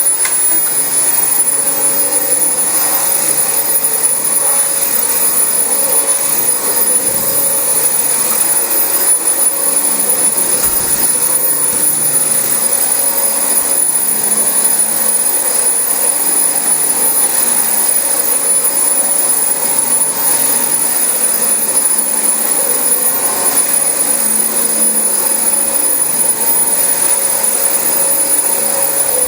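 Dyson DC25 upright vacuum cleaner running steadily at full speed while vacuuming carpet: a loud, constant high-pitched motor whine over the rush of air.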